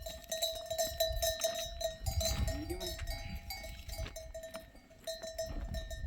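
Livestock bells clinking and ringing as the animals move, with a bleat about two seconds in.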